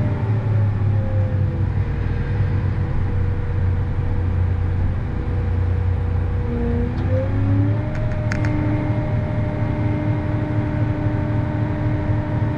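Tractor engine running steadily, heard from inside the cab, with a whine that dips in pitch and climbs back about seven seconds in. A couple of sharp clicks come about eight seconds in.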